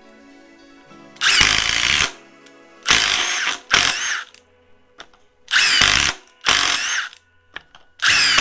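Milwaukee M18 Fuel impact driver boring into wood with a large spade bit, hammering in about six short bursts under a second each, with brief pauses between them.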